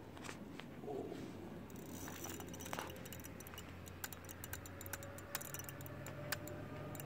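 Fixed-spool fishing reel clicking irregularly while a hooked sturgeon is played on the rod. The clicks start about two seconds in, with faint handling noise underneath.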